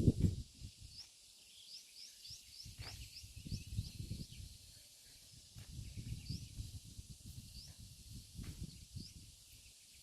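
A small bird chirping repeatedly, short high rising chirps at an uneven pace, over low gusting wind rumble on the microphone.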